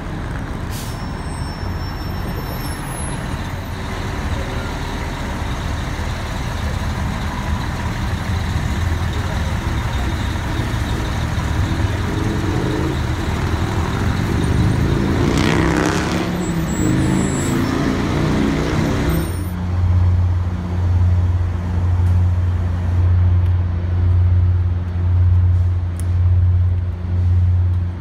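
City street traffic and large vehicles. Past the middle, a heavy vehicle's sound rises steadily in pitch for several seconds. For the last third, a low drone swells and fades about once a second.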